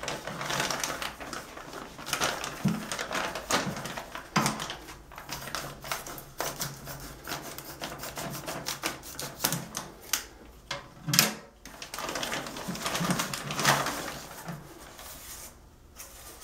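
Scissors snipping and cutting open a plastic poly mailer, with the plastic crinkling and rustling as it is handled, among many small clicks. A single sharp knock stands out about two-thirds of the way in.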